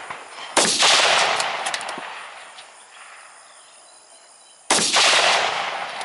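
Two rifle shots about four seconds apart, each a sharp crack that dies away in a long rolling echo. A few quick small clicks follow each shot.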